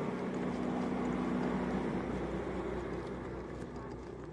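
Steady low hum of a sportfishing boat's engine, with a hiss of wind and water over it, easing slightly toward the end.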